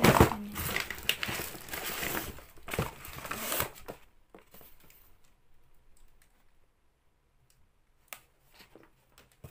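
Plastic wrapping crinkling and cardboard rustling and scraping as a product box is handled and pulled out of a cardboard shipping carton. The handling noise stops about four seconds in, leaving only a few faint clicks.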